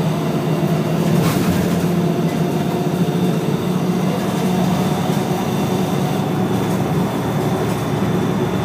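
Scania DSC1171 11-litre six-cylinder turbo diesel of a Scania L113CRL bus with ZF five-speed gearbox, running steadily with a low, even drone. A brief click a little over a second in.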